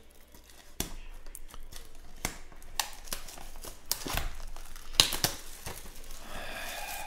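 Plastic shrink-wrap on a sealed trading-card box crinkling and tearing as it is picked open, a run of sharp crackles and snaps.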